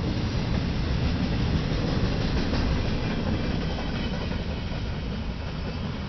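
Freight cars rolling past on the rails with a steady wheel rumble, growing a little quieter over the last few seconds.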